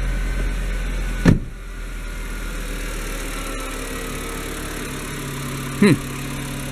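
Volkswagen Jetta wagon's engine idling steadily, with a car door shutting about a second in, after which the low hum is lower. Another short thump comes near the end.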